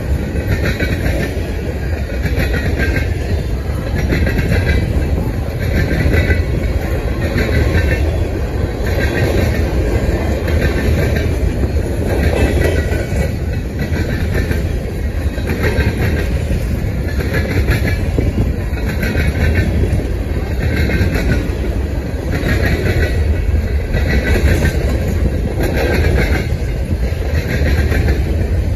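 Loaded covered hopper cars of a freight train rolling past: a steady low rumble of steel wheels on rail, with a regular clickety-clack about once every second and a quarter as each car's wheel sets go by.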